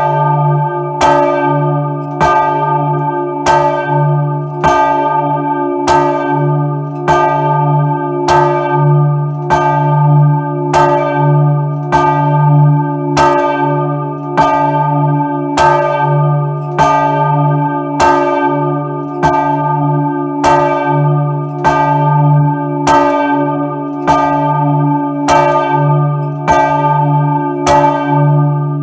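Large church bell 'Maria' swung by hand with a rope, its clapper striking about once a second. Each strike rings out over a steady low hum that carries on between strikes. Heard up close inside the bell chamber.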